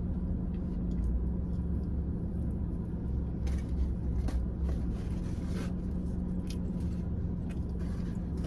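Steady low rumble and hum of an idling car, heard from inside the cabin, with scattered small clicks and rustles over it.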